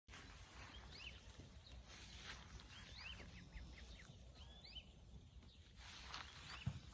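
Faint, scattered high peeps from ducklings over a low outdoor rumble, with a few soft clicks and one brief low thump near the end.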